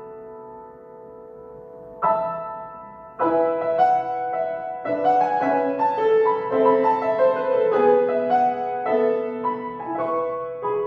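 Solo piano playing: a held chord dies away, a new chord is struck about two seconds in, then a quicker run of notes follows from about three seconds and thins out near the end.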